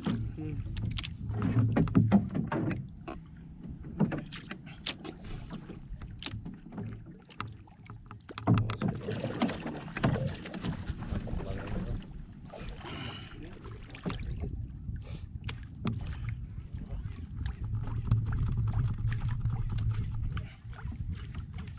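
Sea water lapping against a small wooden outrigger canoe, with many scattered sharp clicks and knocks from the boat and the fishing rod and reel, over a low rumble that grows steadier and louder near the end.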